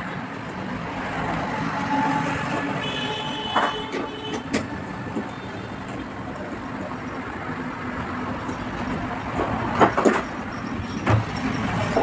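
Steady street traffic in the background, with a few sharp metal clicks and knocks (about four seconds in, and twice around ten seconds) from a socket spanner working the refrigerator's door-hinge bolts.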